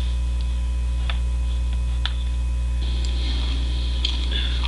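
Steady low electrical hum with a few faint clicks, and a faint hiss coming in about three seconds in.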